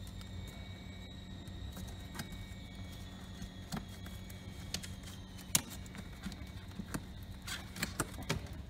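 Cardboard being handled: irregular light clicks and taps as cardboard tabs are folded and slotted into the walls of a display box, with one sharper click about halfway through and a quick run of clicks near the end. A low steady hum runs underneath.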